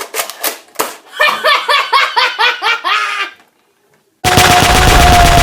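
A few sharp clicks, then a quick run of laughter, a moment of dead silence, and near the end loud continuous machine-gun fire cuts in suddenly.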